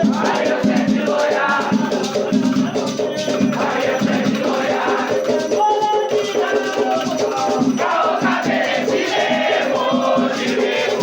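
Afro-Brazilian batuque ritual music: voices singing a chant over beaded gourd shakers (agê) and drumming, in a dense, continuous rhythm.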